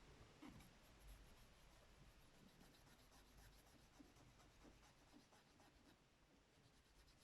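Near silence with faint, scattered scratching: small contacts on a key fob being scrubbed clean of black residue with degreaser.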